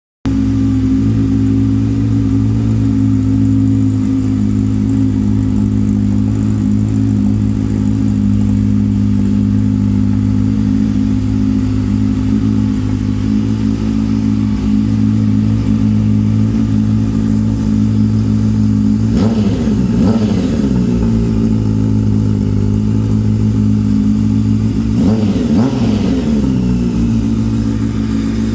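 Honda Hornet 600 inline-four motorcycle engine idling steadily through an aftermarket Devil exhaust. The throttle is blipped briefly twice, about two-thirds of the way in and again near the end.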